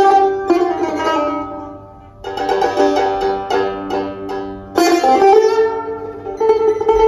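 Solo Persian tar plucked with a plectrum. A melodic phrase dies away about two seconds in and is followed by a run of quick notes. About five seconds in comes a sharp strum, and near the end one note is struck rapidly over and over in a tremolo.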